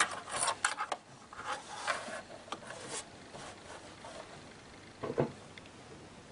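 Cotton fabric rustling and sliding as it is handled and laid under a sewing machine's presser foot: a string of short rubbing sounds in the first three seconds and one more about five seconds in.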